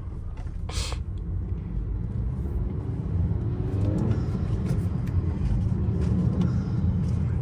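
Turbocharged 2.0-litre four-cylinder of a 2019 Honda Accord with an aftermarket PRL high-volume intake, pulling under way as heard from inside the cabin: a low rumble that grows steadily louder. A short hiss comes about a second in.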